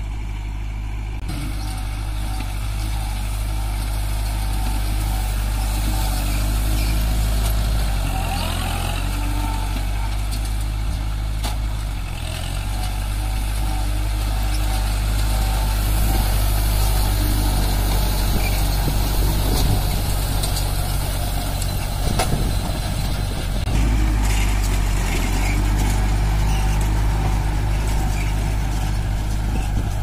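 Kubota MU4501 tractor's four-cylinder diesel engine running steadily under load while driving a square baler through straw. The engine note changes abruptly about a second in and again near the end.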